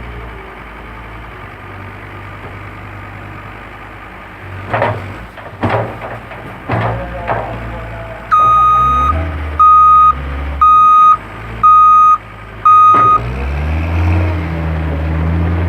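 John Deere 326D skid steer's diesel engine running, with a few sharp clanks about five seconds in. Then its backup alarm beeps five times, about once a second, as the machine reverses, and the engine revs up after the beeps.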